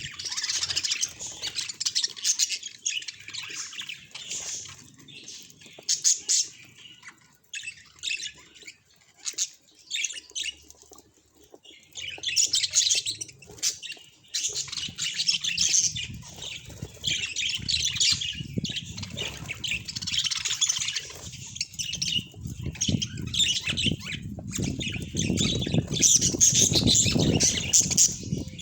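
Pet budgerigars chattering, with rapid chirps and squawks in bursts that thin out to scattered chirps partway through. A low rumbling noise runs underneath in the second half.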